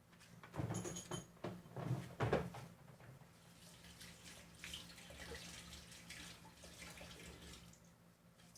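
A few knocks and a brief clink of kitchen things being handled, then liquid running steadily for about five seconds before it stops.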